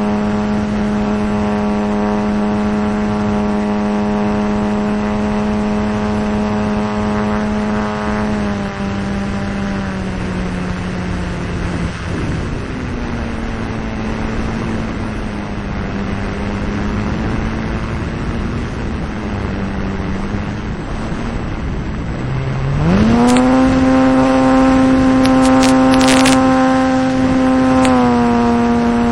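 Engine of a radio-controlled T-28 Trojan model plane, heard from an onboard camera: it runs steadily, is throttled back about nine seconds in, then is opened up sharply to a higher steady pitch a little over twenty seconds in with a few sharp clicks and rattles, easing back slightly near the end. The throttle-back and sharp run-up fit a low approach and full-power climb-out in a touch-and-go.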